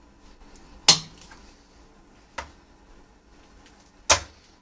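Three sharp knocks from pliers working at a rust-seized part of an antique percussion pistol clamped in a bench vise, the first and last loud and the middle one fainter.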